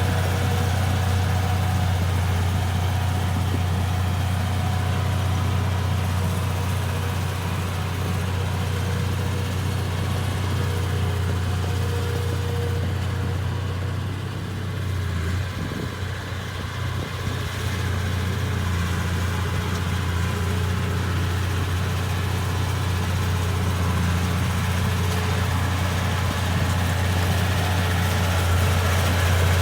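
Komatsu D31P bulldozer's diesel engine running steadily with a deep, constant note, dipping briefly about halfway through before picking up again.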